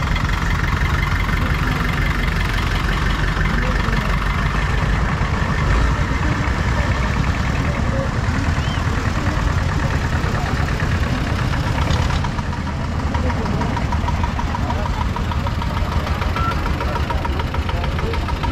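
An engine idling steadily, with the general chatter of a crowd around it.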